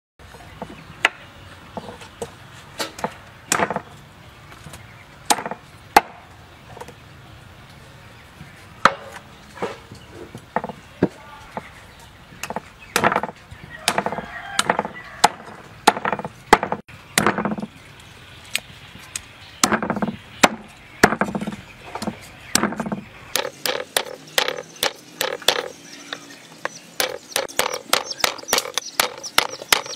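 Cleaver chopping and cutting an oxtail on a thick wooden chopping block: irregular knocks of the blade into the wood, some with a dull thud. Over the last several seconds the strokes come faster, several a second.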